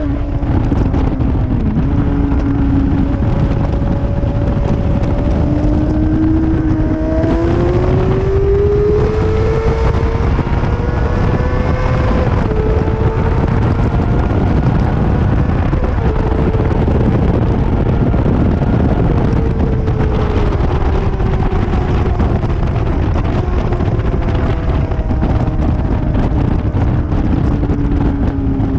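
Motorcycle engine heard from on board at track speed, under a heavy rush of wind on the microphone. The engine note climbs in steps through the gears from about six to twelve seconds in, then holds and slowly falls away toward the end.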